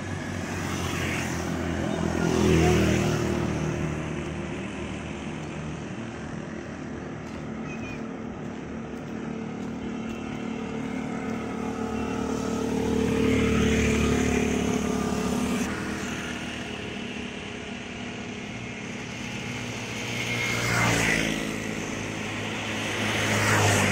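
Motorcycle engines droning as traffic passes along a road, swelling and fading several times as each vehicle goes by.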